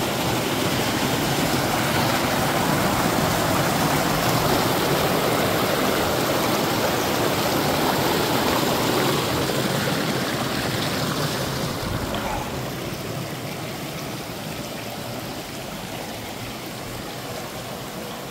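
Rushing water of a mountain stream, a steady noise that grows quieter from about twelve seconds in.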